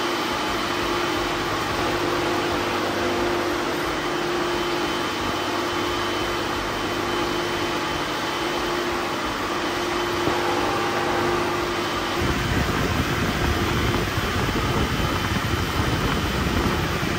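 Chevy Volt dual electric radiator fans running at full duty cycle through a PWM controller: a steady rush of air with a constant motor hum. About twelve seconds in, the air rush turns deeper and louder.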